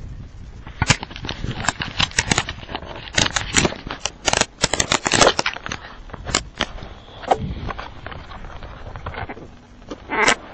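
Jacket fabric rustling and scraping right against the microphone as the camera is handled inside clothing: an irregular run of loud crackles and scrapes, busiest in the middle.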